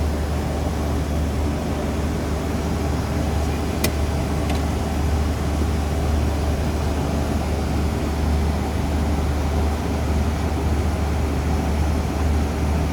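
Cessna 425 Conquest's twin Pratt & Whitney PT6A turboprop engines running, heard from inside the cockpit as a steady low drone. A sharp click about four seconds in, and a fainter one just after.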